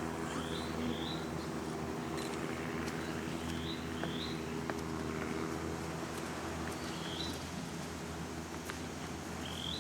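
A bird calling with short high chirps, mostly in pairs, repeated several times over a steady low hum.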